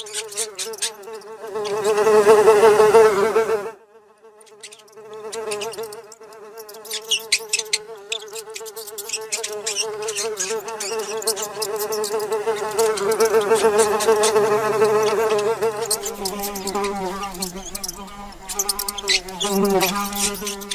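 Housefly buzzing in flight, a steady warbling drone that swells and fades as it moves and drops out briefly about four seconds in, with many sharp clicks scattered over it. A lower hum joins near the end.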